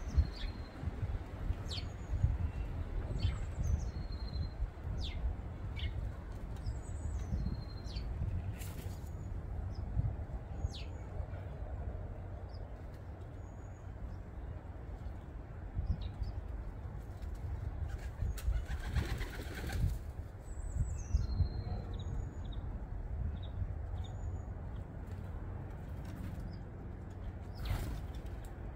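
Starlings and pigeons at a garden suet feeder: scattered short, high chirps and whistles throughout, with wing flaps and a longer rush of flapping about two-thirds of the way through, over a steady low rumble.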